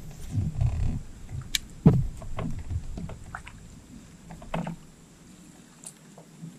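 Low thuds and scattered knocks on a boat's deck as people move and handle gear, the loudest knock about two seconds in, with a few fainter clicks later.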